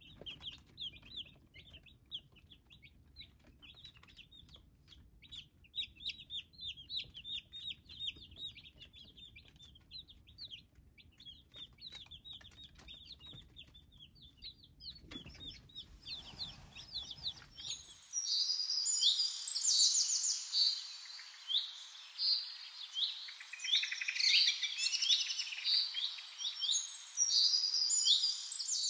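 Easter Egger chicks peeping continually, many short high chirps, with faint clicks. About two-thirds of the way through, the sound cuts abruptly to louder, higher chirping with the low background gone.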